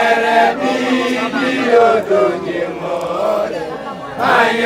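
Young male initiates (makoloane) chanting together in call and response: the group holds a sung note, a single voice leads in the middle, and the full group comes back in loudly near the end.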